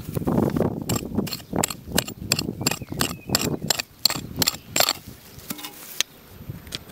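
Dry grass and straw crackling and snapping as the ground is swept through: a rapid, irregular run of sharp clicks.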